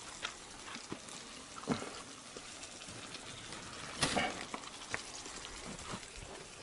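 Oil sizzling in a frying pan, a steady crackling hiss with scattered clicks and a louder clatter about four seconds in.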